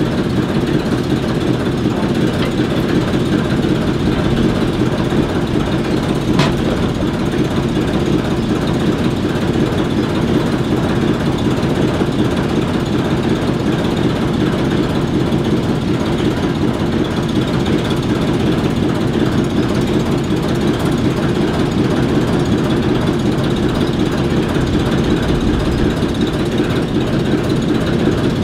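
ALCO diesel switcher locomotive's six-cylinder turbocharged 539 engine idling steadily.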